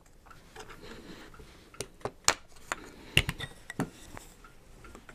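A handful of irregular clicks and knocks from hand tools and a wooden dowel being handled and set down beside a rifle, two of them louder, a couple of seconds in and about three seconds in.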